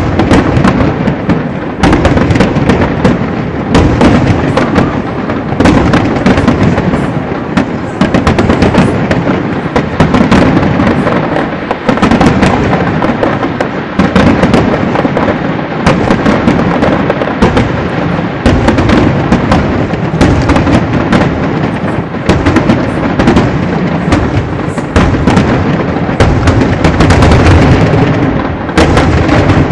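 Aerial firework shells bursting in a continuous barrage: dense, overlapping booms, several a second, loud throughout.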